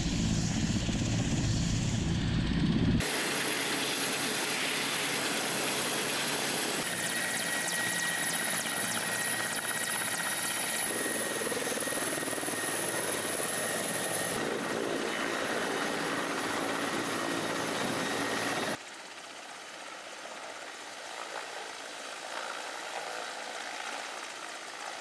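Military helicopters running: a short stretch of loud low rotor and engine rumble, then the high, steady turbine whine of a Mi-24P attack helicopter taxiing, and near the end a quieter rotor sound of a Mi-8AMTSh-V helicopter in flight.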